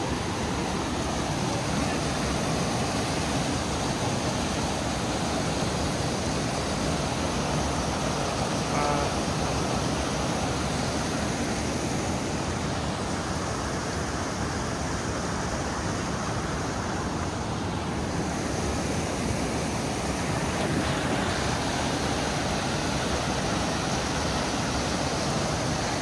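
Mountain stream rushing and splashing over boulders in small rapids, a steady, even rush of water.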